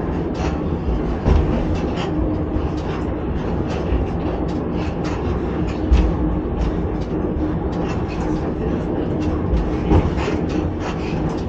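Reko-ET electric railcar running along the track, heard from inside the driver's cab: a steady rumble and hum, with wheels clicking and knocking over the rails and three louder knocks, about a second in, midway and near the end.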